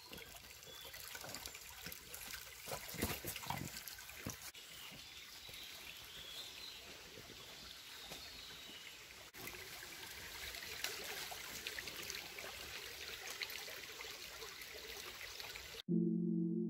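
Shallow stream trickling over stones, with a few splashes about three seconds in.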